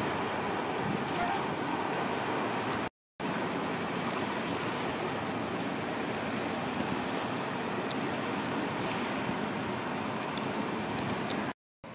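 Wind rushing over the microphone with waves washing, a steady hiss with no engine tone. It cuts out to silence briefly about three seconds in and again near the end.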